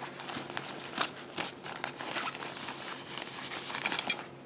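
Rustling and crinkling of a lightweight waterproof stuff sack as hands open it and pull out a camp towel, with a quick run of crisp crackles near the end.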